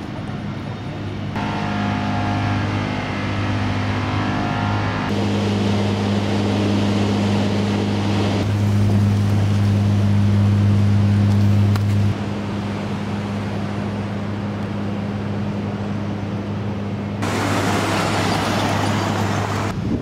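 Steady low vehicle engine hum with road and traffic noise, changing abruptly several times as one stretch of street recording gives way to the next; near the end it turns louder and hissier.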